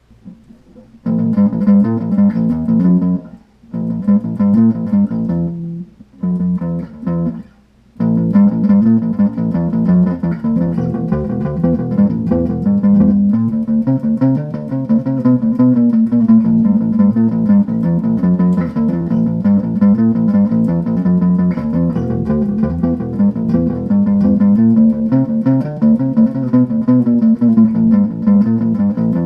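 Amplified electric string instrument played solo, picking out a riff with no backing track. It starts a second in with a few short phrases broken by pauses, then plays on without a break from about eight seconds in.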